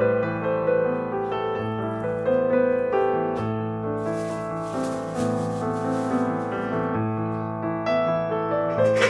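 Background piano music: a gentle melody of held notes over a repeating bass, with a soft hiss swelling briefly in the middle.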